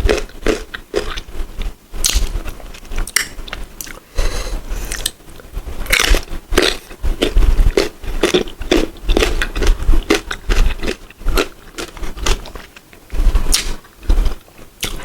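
Crunching bites into crisp unripe green mango, close to the microphone, with chewing between the bites. The crunches come irregularly, many times over.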